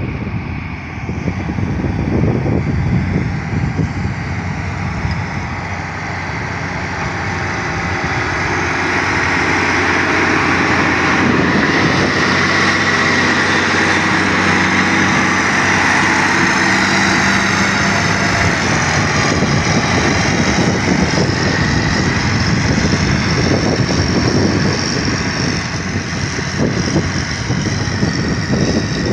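Engine of a heavy road-construction machine running continuously, growing louder several seconds in and then holding steady.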